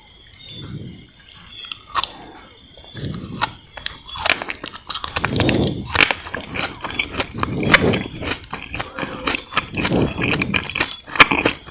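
Close-miked chewing of sugar-coated jelly candy: repeated bouts of mouth sounds about a second apart, thick with sharp clicks and crackles.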